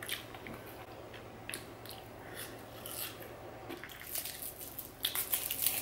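Close-miked chewing and wet mouth clicks from eating chips. In the last second or two the clicks come thicker and crackly as a plastic straw and a foil drink pouch are handled.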